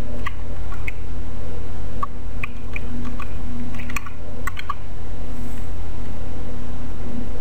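Computer keyboard keys clicking, about a dozen light taps over the first five seconds as Alt and left-arrow are pressed, over a steady low hum.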